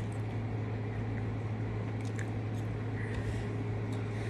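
Someone chewing food, with a few faint clicks of a fork on a plate, over a steady low hum.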